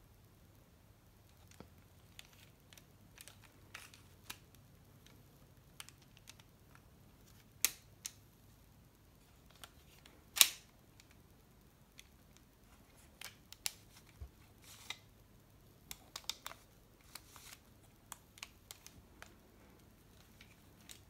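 Lego M1911 replica pistol being handled: scattered plastic clicks and rattles from its brick-built slide and parts, with two sharp snaps about eight and ten seconds in, the second the loudest.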